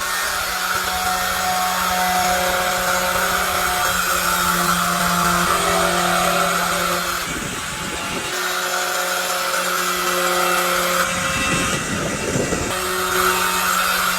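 Electric power tool motor running steadily, with a rougher, noisier stretch of about a second twice as it works against the part.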